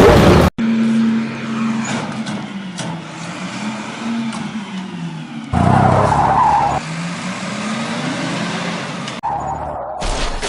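Cartoon vehicle engine sound effect: a steady motor hum whose pitch falls and then climbs again, with a louder burst about five and a half seconds in.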